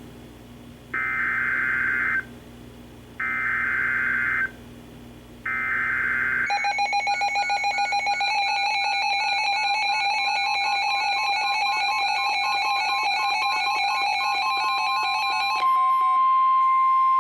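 NOAA Weather Radio Emergency Alert System SAME header: three separate buzzy data bursts of about a second each, announcing a winter storm warning. Then several weather alert radios sound their alarms together, a layered, evenly pulsing beeping, and near the end only the steady 1050 Hz warning tone is left.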